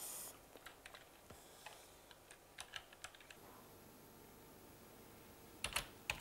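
Computer keyboard being typed on: faint, scattered keystrokes for the first three seconds, a pause, then a quick run of louder keystrokes near the end.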